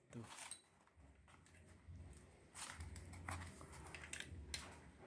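Faint handling noise: a chrome steel staple gun and a cardboard block being moved about on a table, with light clicks and rubs, most of them in the second half.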